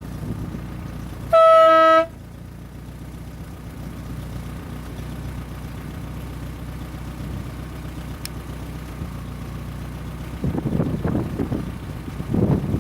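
A horn toots once, a single steady pitch lasting under a second, over a steady low hum.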